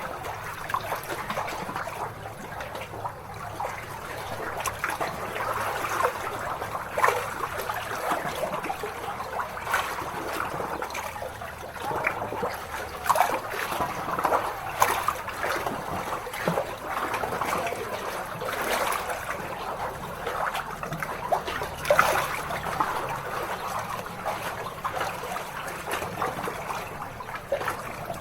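Small lake waves lapping against the shore, a continuous trickle of water broken by frequent small splashes.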